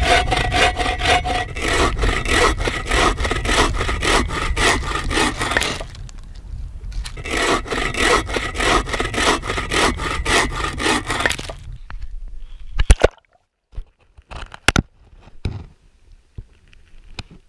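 Bow saw cutting through a log in quick, even back-and-forth strokes, with a brief pause about six seconds in. The sawing stops near the twelve-second mark, and a few sharp knocks follow.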